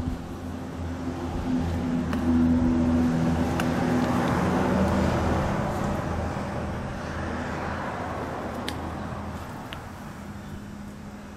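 A motor vehicle passing by: its engine hum and road noise swell over the first few seconds, then fade away, the pitch dropping slightly as it goes.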